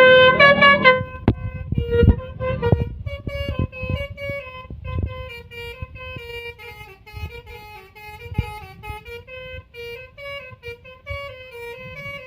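Basuri 'telolet' musical air horn playing a rapid tune of short stepped notes that move up and down. It is loudest in the first second or so and quieter as the tune goes on, with scattered knocks underneath.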